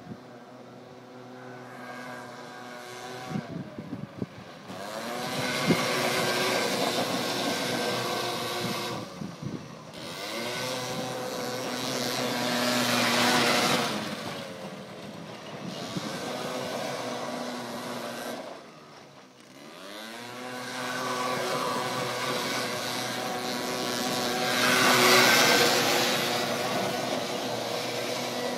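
The small scooter engine (a Peugeot Vivacity unit) of a Forshaga Shopper microcar revs up and eases off repeatedly as it is driven in circles. Its pitch rises and falls several times, dips sharply about two-thirds of the way through, and is loudest near the end.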